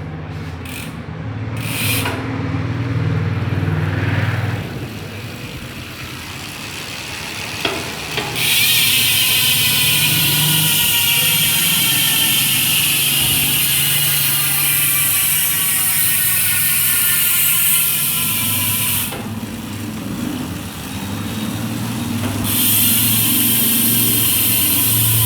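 Speed One Soldier bicycle hub's freehub ratchet buzzing loudly as the spun wheel coasts, its pitch slowly falling as the wheel slows. It cuts off suddenly about two-thirds of the way through and starts buzzing again near the end.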